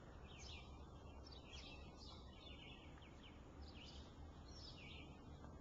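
Faint birdsong: many short chirps and quick downward-sweeping calls from songbirds, over a low steady background hum.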